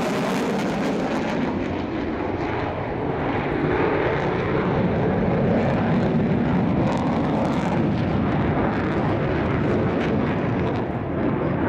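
Mitsubishi F-15J Eagle's twin F100 turbofan engines running loud in a display pass, with afterburners lit at the start. The jet noise is continuous and a little louder in the middle.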